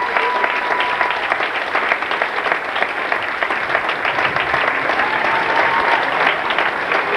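Audience applauding steadily with dense clapping. A thin, high, held tone sounds over it briefly at the start and again about five seconds in.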